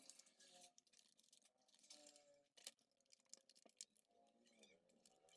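Faint crackling of an adhesive plastic polarizer film being peeled off the back of an LCD panel, with a few sharper clicks, one about halfway through.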